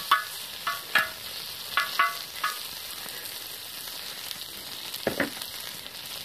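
Diced pork fat sizzling as it renders on a steel harrow-disc frying pan over a wood fire. A metal utensil clinks against the ringing steel disc about six times in the first two and a half seconds while stirring the fat, and there is a brief knock about five seconds in.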